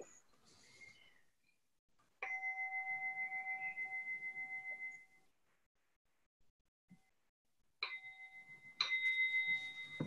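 Meditation bell struck three times. The first strike, about two seconds in, rings with a pulsing hum for about three seconds. Two more strikes come a second apart near the end and ring on, opening a sitting meditation.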